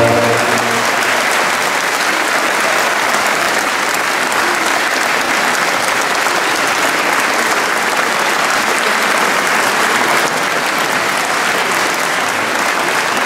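Audience applauding steadily, a dense even clapping; the choir's last held chord dies away under the first moment of it.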